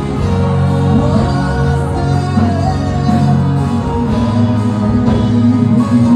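Live gospel worship music: a group of singers with a backing band and a steady beat, about two beats a second.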